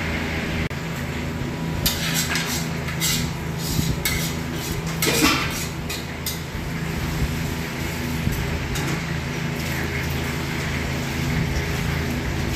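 Metal kitchenware, stainless pans and utensils, clattering in a run of sharp clanks between about two and six seconds in, over a steady machine hum.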